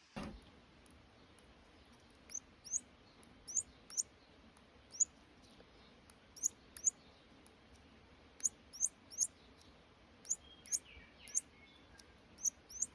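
A hand-reared baby bird cheeping: short, very high, thin peeps coming irregularly, about sixteen in all, sometimes two close together. A single knock sounds right at the start.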